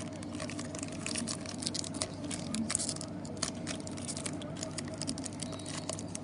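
Trading cards and packs being handled on a table: a quick, uneven run of light clicks and rustles over a steady low hum.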